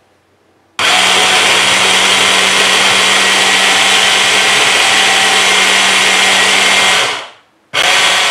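Kenwood hand blender's motor running in its chopper bowl, puréeing mango chunks with milk. It starts about a second in and runs steadily for about six seconds. Then it winds down and stops briefly, and starts again near the end.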